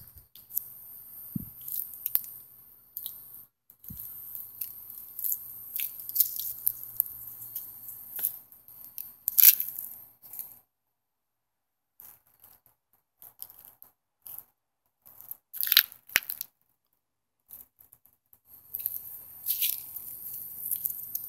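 Intermittent close crunching and rustling with sharp crackles, loudest about halfway through and again about three-quarters in, broken by two short stretches where the sound drops out completely.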